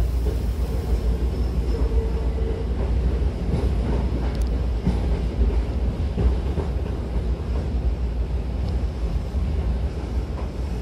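Hankyu train car's interior running noise as it rolls into a station and slows: a steady low rumble of wheels and running gear, a faint hum for the first few seconds, and a brief high squeal about four seconds in.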